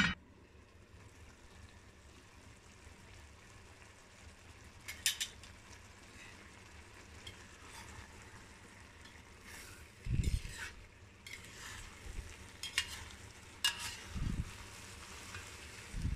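A metal spoon stirring and scraping a thick stew in a Le Creuset enameled cast-iron pot over a steady low sizzle of the food cooking. There are a handful of sharp scrapes of the spoon against the pot and a few dull knocks.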